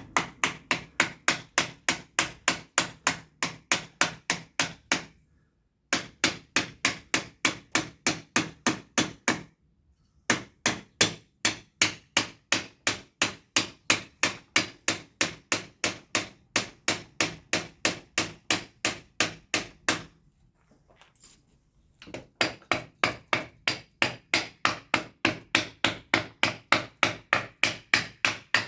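Rapid, evenly paced striking in a woodworking shop, about four to five blows a second, in runs of several seconds broken by short pauses.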